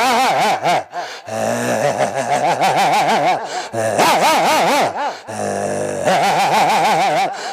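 A man imitating dogs with his voice: a run of quavering, wavering dog-like whines and howls in several phrases, broken twice by lower, steadier growl-like calls.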